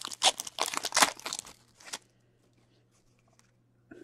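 A hockey card pack's wrapper being torn open by hand, crackling and crinkling for about two seconds, then stopping, with a few faint clicks of cards being handled near the end.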